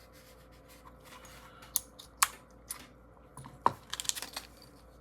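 Small hard clicks and taps as a fidget toy's small parts, its detent ball and spring, are handled and set down. A few separate clicks come first, then a quick flurry of clicks about four seconds in.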